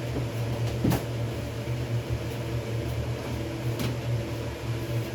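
Steady low mechanical hum of a kitchen appliance or fan, with a light click or knock about a second in and another near four seconds.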